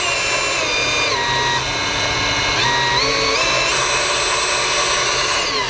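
DeWalt DCS374 20V Max cordless deep-cut band saw running with no load while its speed setting is changed. The motor's whine steps down in pitch several times, then steps back up, then winds down near the end.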